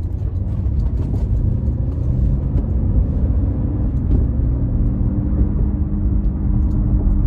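2009 Cadillac CTS driving, a low rumble with a steady drone that comes in about three seconds in and holds. It is the driver's-side noise that the mechanic suspects is a bad hub bearing.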